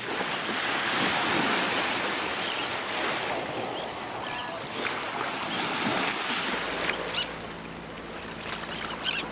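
Waves washing on a shore, with short high bird calls now and then.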